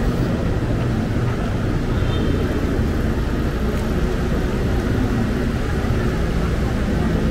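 Steady low rumble of motor traffic on a city street, with no sudden events.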